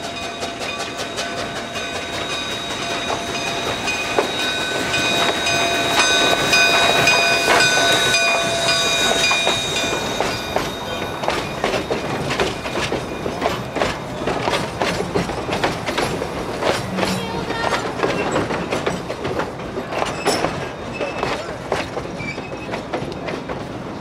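Narrow-gauge K36 2-8-2 steam locomotive and its passenger coaches passing close by. For about the first ten seconds several steady high ringing tones sound together. After that the coach wheels click over the rail joints in a quick, uneven rhythm.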